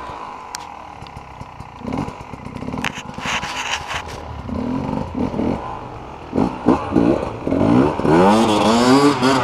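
Dirt bike engine revving hard under load while climbing a steep dirt slope, its pitch rising and falling with each burst of throttle, loudest near the end. Clattering and scraping before that.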